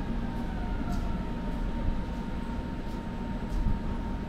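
Berlin S-Bahn electric train: a steady low rumble with a thin steady electric hum, and a faint falling whine in the first second.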